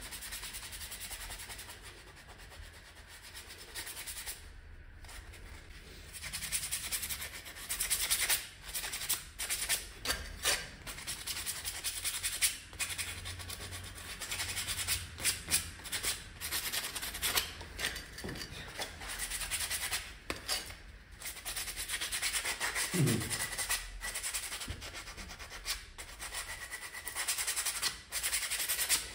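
Sandpaper rubbed by hand over the friction linings of a Honda PCX 125's centrifugal clutch shoes, in uneven rasping strokes with occasional sharp knocks, scuffing the glaze off the linings.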